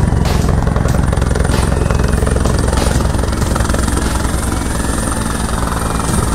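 Helicopter coming in to land, its rotor and engine running steadily as it descends.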